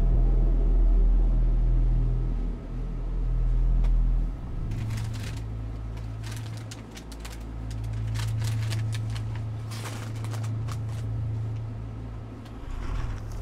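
A steady low hum runs throughout and is the loudest sound. From about five seconds in, the crinkly plastic of a bag of chips rustles in bursts as it is picked up off the floor and pushed back onto a shelf, until about eleven seconds in.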